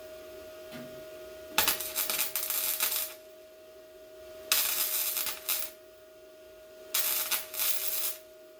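Welder laying three short stitch-weld bursts on the truck bed's sheet metal, each a crackling sizzle about a second long with a sharp start, separated by short pauses.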